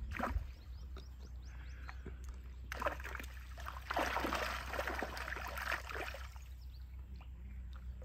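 Water splashing as a hooked fish thrashes at the surface beside a landing net held in the shallows, in irregular bursts from about three to six and a half seconds in.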